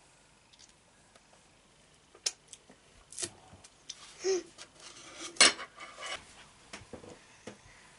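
Metal cutlery clinking and scraping against ceramic plates on a table. A scatter of sharp clinks starts about two seconds in, and the loudest comes about five and a half seconds in.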